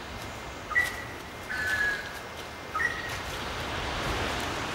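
A bird calling three times in short whistled notes, each held at one pitch, the middle one lower and longer. Footsteps rustle through dry leaf litter toward the end.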